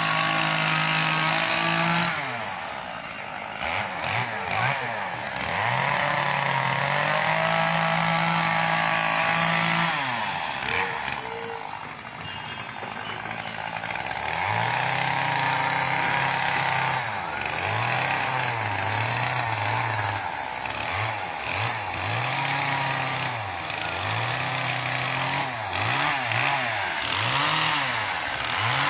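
Gas chainsaw carving wood, held at full throttle, then easing off and revving back up. In the second half the throttle is blipped up and down about once a second.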